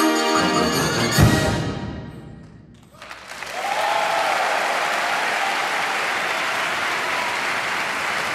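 A wind band's last chord sounds with bells ringing, ends on one sharp low stroke about a second in, and dies away. From about three seconds in the audience applauds, with a shout over the clapping.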